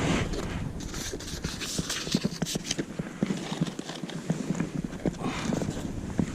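Dry sticks and brush cracking and knocking in a rapid, irregular run of sharp clicks as dead branches are snapped, handled and stepped through for firewood.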